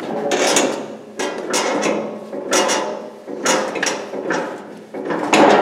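Metal clanking from the foot pedal of a Harbor Freight motorcycle lift table as it is fitted and worked, about one clank a second.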